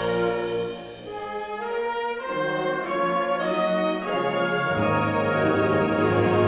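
Concert band playing slow, sustained brass-led chords. The bass drops out about a second in, leaving a softer passage, then comes back near the end as the band swells fuller.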